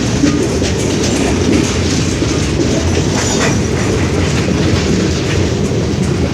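Heavy freight train rolling past: a steady rumble of wheels on rail, with scattered clicks as the wheels cross rail joints.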